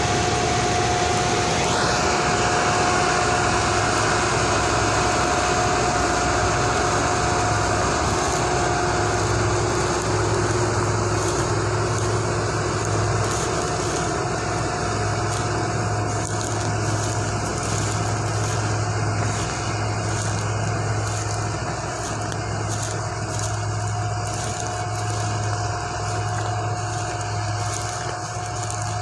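Deutz-Fahr combine harvester running steadily while harvesting wheat, with a brief rising whine about two seconds in.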